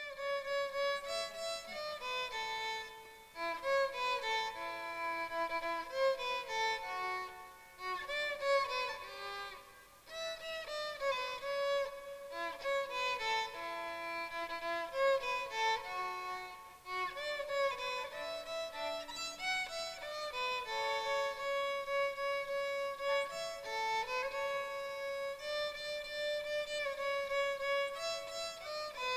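Solo violin, bowed, playing a slow melody of single held notes, gliding between some of them, in phrases broken by short pauses.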